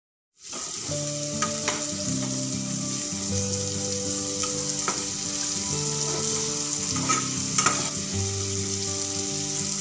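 Jackfruit seeds, onion and spices frying in oil in a kadai, a steady sizzle with scattered clicks of a spatula stirring and scraping against the pan. Soft background music with held notes plays under it.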